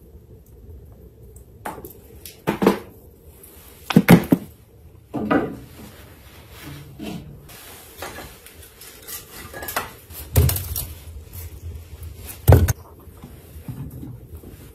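Scattered knocks and clatter from handling dishes and firewood logs: a dozen or so separate short knocks and clinks, the loudest about four seconds in and again near the end.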